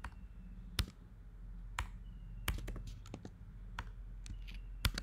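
Computer keyboard keys clicking as code is typed: about a dozen separate keystrokes, several in quick succession in the middle, over a low steady hum.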